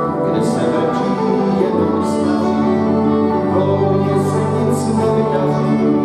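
Moravian cimbalom band playing a folk tune: bowed violins lead over a held double-bass line.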